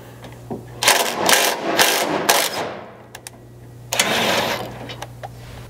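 Cordless impact with a 9/16 socket on an extension running in two short bursts, about a second in and again about four seconds in, backing a 3/8 thread-cutting bolt out a little from the frame bracket.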